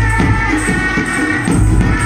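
Chhau dance music: drums beating under a high, held melody line with sliding notes.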